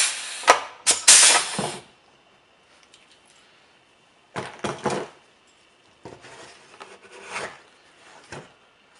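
Hand pop-rivet gun squeezed in a few quick, sharp strokes in the first two seconds as it sets a rivet through the fiberglass fairing. Afterwards come softer knocks and clatter as the fiberglass panel is moved about on the bench.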